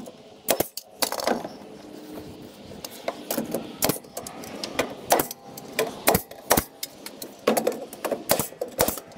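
Pneumatic nail gun firing a series of sharp, unevenly spaced shots as it drives nails at an angle through a wooden stud into the framing.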